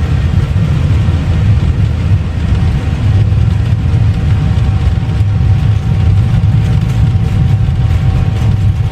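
Airbus A321 cockpit noise during takeoff: a steady, loud low rumble of the engines and rushing air, with a faint steady whine above it.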